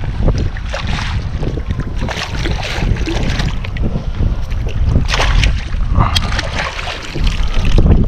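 Gusty wind buffeting the microphone with a heavy, uneven rumble, mixed with water splashing and slapping around a kayak. A sharper splash comes about five seconds in.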